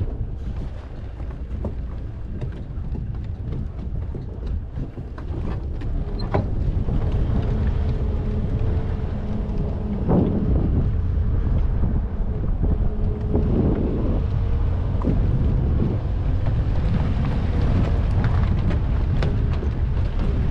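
Toyota Hilux pickup driving over rough desert ground, heard from the open bed: a low rumble with wind buffeting the microphone and scattered knocks and rattles from bumps. About a third of the way in an engine hum comes in and the whole grows louder.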